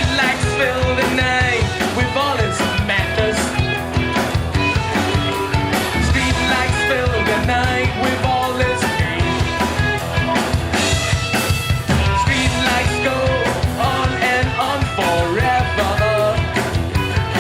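Rock band playing live at full volume: drum kit, guitars and bass, with melodic lines weaving over the beat.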